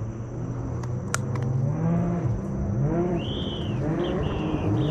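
Jet ski engine running out on the water, its pitch rising and falling as it revs up and eases off.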